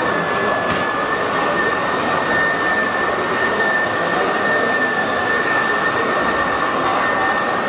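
Small electric motor of a battery-powered toy vehicle running continuously with a steady high whine.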